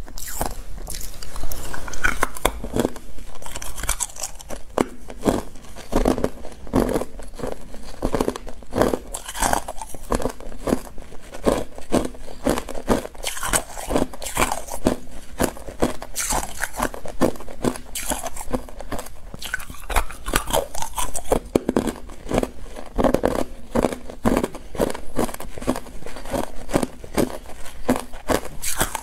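Hard clear ice being bitten and chewed: a loud crunching bite about a second and a half in, then continuous irregular crunching and cracking as the ice is broken up between the teeth.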